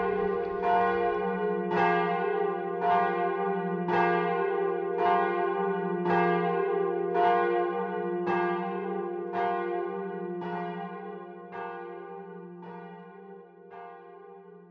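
Church bell ringing, struck about once a second, each stroke ringing on into the next, then fading away over the last few seconds.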